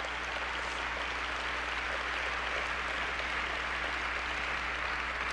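Audience applauding steadily, a dense even clapping with a faint steady low hum underneath.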